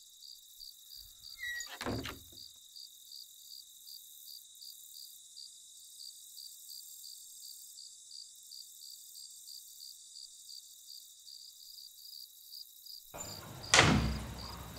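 Crickets chirping steadily, about three pulses a second. A thunk comes about two seconds in, and near the end a loud clunk as the wooden double door is unlatched and opened.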